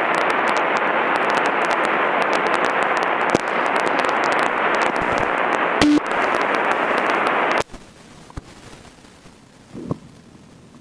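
Steady hiss of cockpit noise through the airplane's intercom, band-limited and broken by scattered crackles. It cuts off abruptly about seven and a half seconds in, as the intercom channel closes, leaving only a faint low hiss with a few clicks.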